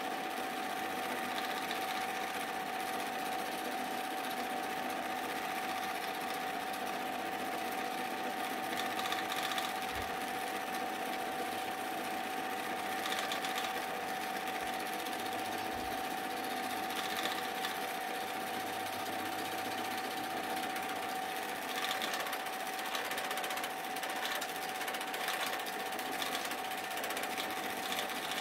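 Super 8 film projector running: a steady mechanical clatter with a constant whining tone.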